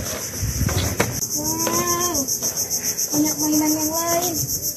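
Insects shrilling steadily in a high, fast-pulsing chorus, with two drawn-out voice-like calls of about a second each over it.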